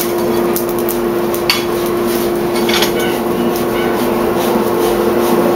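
A blacksmith's forge: a steady hum runs throughout, with scattered light metallic clinks and crackles over it.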